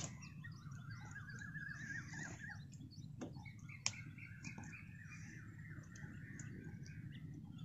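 Birds calling faintly: a fast run of chirps, then a longer wavering call, over a low steady background rumble. A sharp click about four seconds in is the loudest moment.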